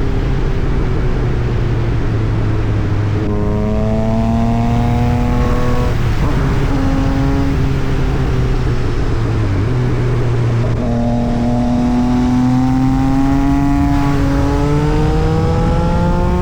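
Yamaha MT-09 SP three-cylinder engine through an Austin Racing exhaust, pulling hard: its note climbs in pitch several times over a second or more, drops, and climbs again, over a steady low drone.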